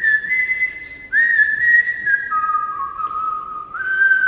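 A person whistling a slow tune through pursed lips: long held notes that step down in pitch in the middle and climb back up near the end.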